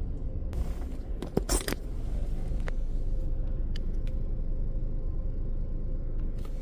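Car idling as a steady low rumble, with a few short clicks and a brief scrape about a second and a half in.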